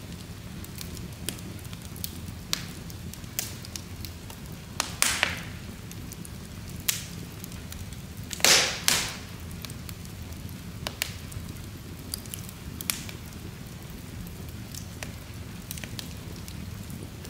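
Wood logs burning in an open fireplace: a steady low rumble of flames with irregular crackles and sharp pops, a few louder, the loudest a close pair near the middle.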